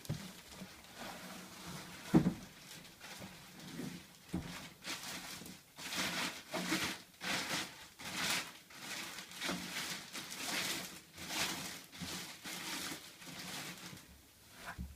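Handling noise as a boxed 3D printer and its packaging are moved about: a thump about two seconds in, then a run of rustling and scraping.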